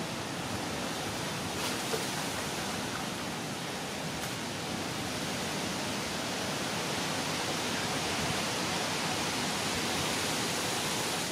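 Steady, even hiss of background noise with no distinct events, and a faint tick about two seconds in.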